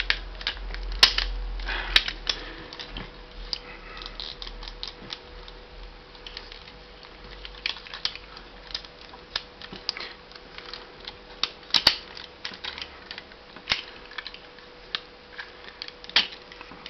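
Irregular clicks and rattles of a plastic transforming action figure, a Transformers Cybertron Red Alert, as its parts are moved and snapped into place by hand, with a few louder clicks.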